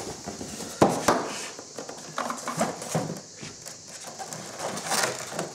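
Unpacking noise from a polystyrene foam box holding a toy quadcopter: irregular knocks, clicks and rustles from hands working at the packaging, the loudest two sharp knocks about a second in.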